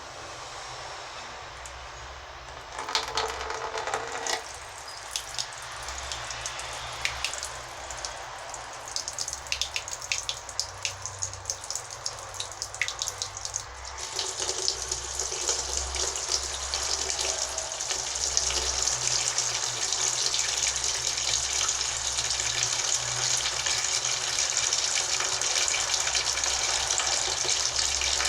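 Water running from a tap and splashing, with irregular splashes and drips at first, then a steadier, louder flow from about halfway on.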